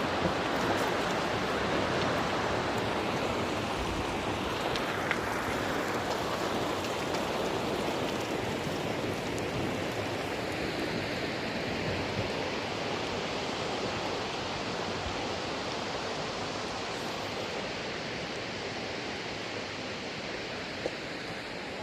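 Torrential rain falling, a steady rushing hiss that eases slightly toward the end.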